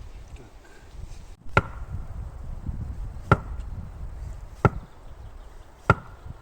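Wood being chopped with an axe: four sharp strokes about a second and a quarter apart, some with a brief ring after the blow.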